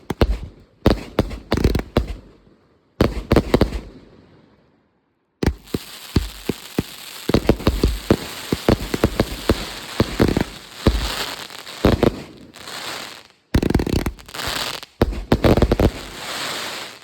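UFO fireworks being test-fired: rapid sharp pops with a hiss underneath. They come in several short takes that start and stop abruptly, with a long continuous stretch from about five seconds in.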